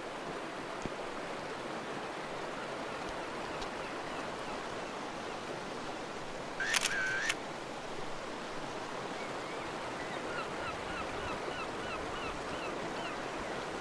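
A DSLR camera's shutter firing once about seven seconds in, a brief click and whir, over a steady outdoor wash of water and breeze. Near the end, a run of short repeated chirps, about two a second.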